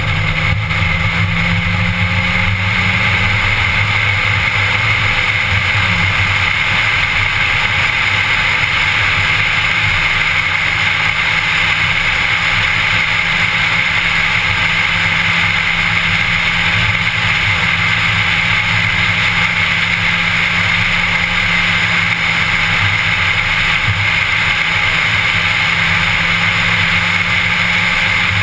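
Car engine and tyre/road noise inside a moving car's cabin, running steadily at cruising speed, with a constant high-pitched tone over it.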